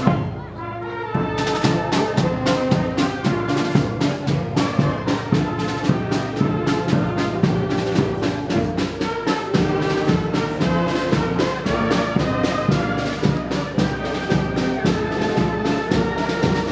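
Brass band playing with drums: held brass chords over a steady, even drum beat.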